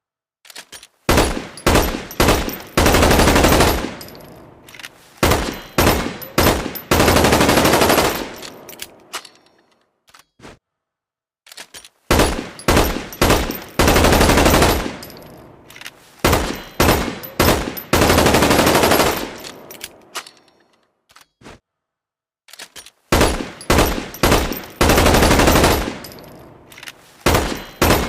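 Gunfire sound effect of a Magpul PDR-C bullpup rifle: single shots and short bursts alternating with sustained full-auto bursts of a second or two, each trailing off in an echoing tail. The same sequence repeats about every eleven seconds, with short silences between.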